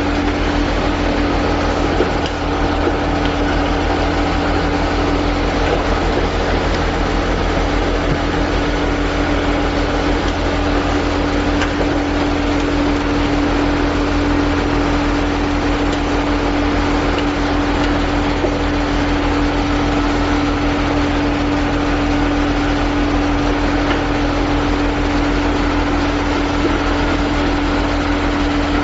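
Steady machine hum from the motor and pump units of an automatic fish-frying line, with one constant mid-pitched tone over a low drone; it does not change.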